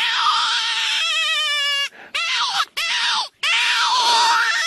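Jackals howling: long, high, wavering wails, with two short yelping calls around the middle.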